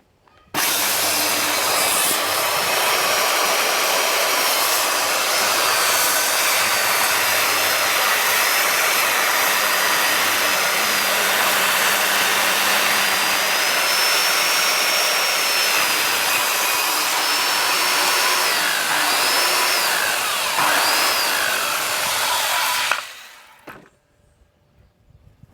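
Corded circular saw starting abruptly and cutting wood, running steadily for about twenty-two seconds with its high whine wavering under load, then switched off and spinning down.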